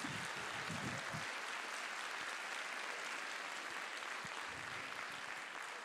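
Audience applauding in a hall, a steady clapping that eases off slightly near the end.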